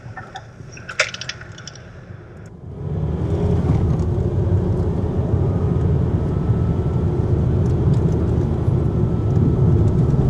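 Car interior drive noise, a steady low rumble of engine and tyres on a wet lane, which comes in sharply about three seconds in after a quieter start with a few light clicks. A faint steady whine sits above the rumble.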